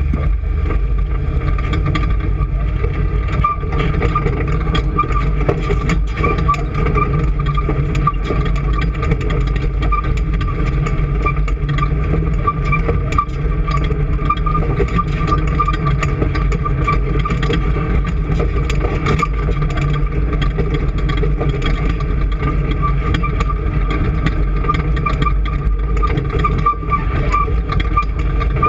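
An engine running steadily, with a constant whine and light rattling ticks over it.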